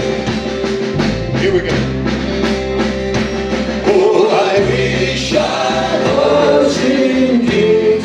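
Live rock band with electric guitars, bass and drums playing, with a male lead voice and backing voices singing long held notes that come in more strongly about halfway through.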